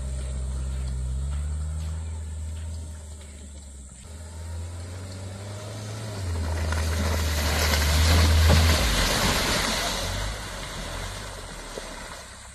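Daihatsu Terios small four-wheel-drive running at low revs on a wet dirt track, its engine pitch stepping up and down. About two-thirds of the way in it passes close, its engine and tyre noise rising to the loudest point, then fading as it moves away.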